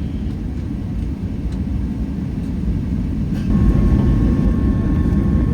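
Boeing 757-200 engine noise heard inside the cabin: a steady low rumble that grows louder about three and a half seconds in, with a steady whine joining it as the engines spool up for the takeoff roll.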